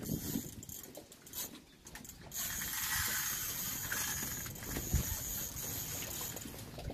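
Spinning reel's drag clicking, then from about two seconds in a steady high-pitched whir as a hooked sturgeon pulls line off against the drag. The whir eases off near the end.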